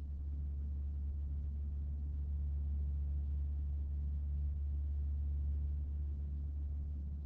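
A steady low rumble that swells slightly in the middle and eases off near the end.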